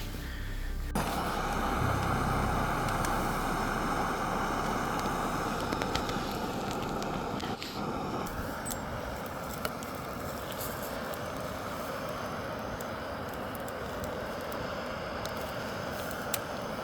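Steady wind noise of a mountain snowstorm, with faint scattered ticks.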